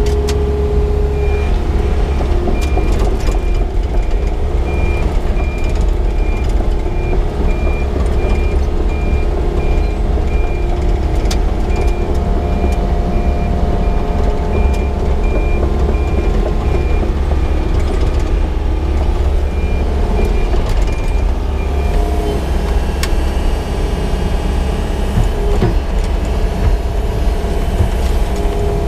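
Diesel excavator engine running steadily with a deep rumble, while a reversing alarm beeps repeatedly at a high pitch for about twenty seconds and then stops.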